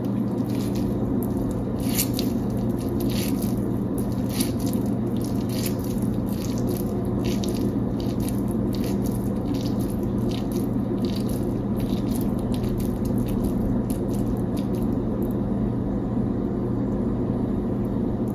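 Sticky, syrup-soaked motichur pearls being scooped and squeezed by hand into laddus, with irregular small squishing and crackling sounds over a steady low hum.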